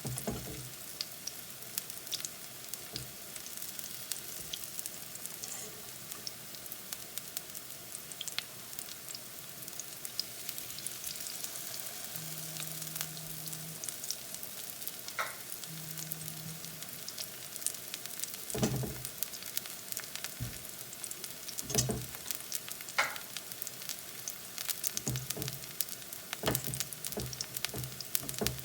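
Chickpea-flour-battered plantain slices shallow-frying in a little vegetable oil, a steady sizzle with crackling pops. A few knocks sound partway through and near the end.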